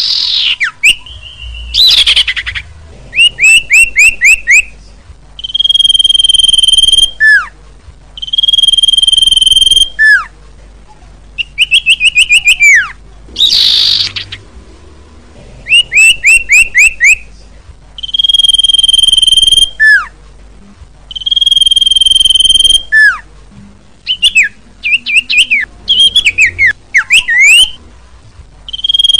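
Common iora (cipoh) song, loud and repeating. Quick runs of about six short chirps alternate with long, level whistles that each end in a falling note. A few brief harsh notes are mixed in.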